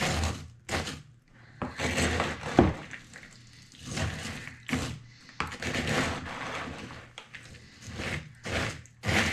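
Wooden spoon stirring a mixing bowl of Rice Chex cereal coated in chocolate, peanut butter and powdered sugar: irregular scraping and rustling strokes with dull knocks against the bowl, one sharper knock about two and a half seconds in.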